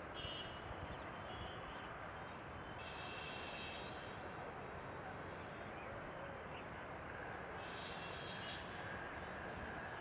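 Outdoor ambience: a steady background hiss of noise, with small birds chirping high and brief, over and over, and a short high trill about a second long heard three times.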